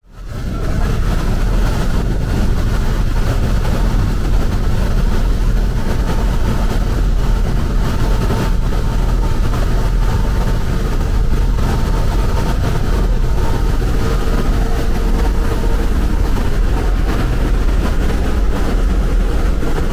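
A bus running at speed on a highway: a steady low engine and road rumble with a faint steady whine above it, fading in over the first half second.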